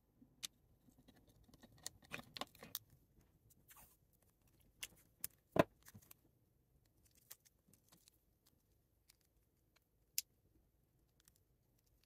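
Quiet handling noises of electrical tape being wrapped around a Tile tracker's small circuit board: scattered light clicks and rustles, with one sharper click about halfway through.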